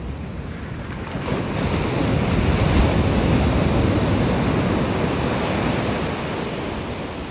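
Sea surf on a sandy beach: a wave breaks and washes in, swelling about two seconds in and slowly fading, with wind on the microphone.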